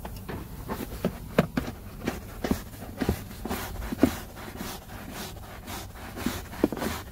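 A brush scrubbing foam-soaked car floor carpet: a run of short, irregular scrubbing strokes, about two or three a second.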